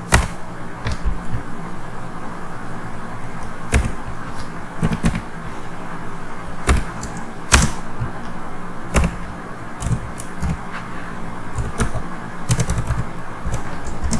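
Typing on a computer keyboard: irregular keystroke clicks in short runs with pauses between.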